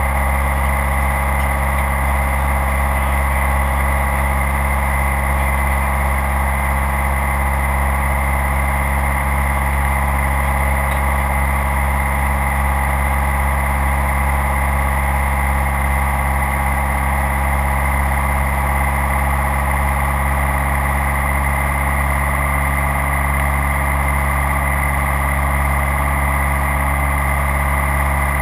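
Light aircraft's engine and propeller droning steadily in cruise, heard from inside the cabin.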